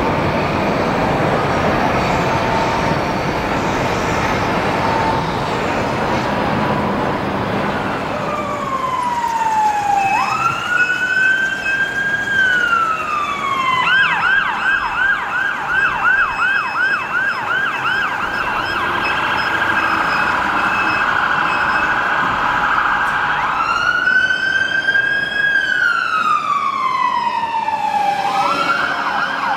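Road traffic noise, then from about eight seconds in an emergency vehicle siren. It switches between a slow wail that rises, holds and falls, and a long stretch of rapid yelping, then goes back to the wail and to the yelp again near the end.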